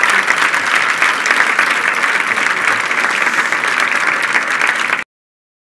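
Audience applauding, a steady dense clapping that cuts off abruptly about five seconds in.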